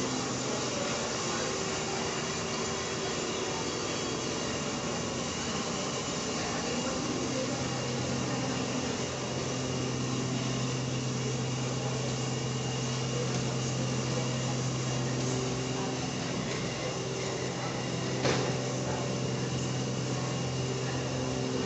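A steady mechanical hum with a hiss over it, unbroken throughout, and a single sharp click about eighteen seconds in.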